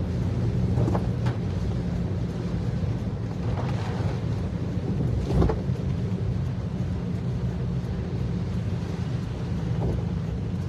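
Inside a car driving through heavy rain: a steady low rumble of the vehicle and its tyres on the wet road, with the hiss of rain on the windshield. There is a brief louder sound about five and a half seconds in.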